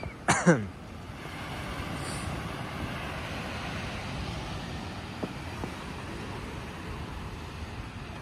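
Steady wash of small surf breaking on a sandy beach. Near the start, a short voice slides downward in pitch.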